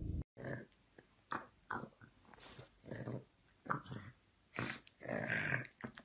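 A pug making a run of short, separate dog sounds, each well under half a second, with a longer one about five seconds in.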